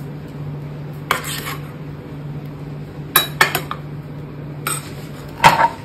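A metal utensil scrapes and clinks against a cooking pan a handful of times while a moong dal breakfast dish is being cooked, the loudest clatter near the end, over a steady low hum.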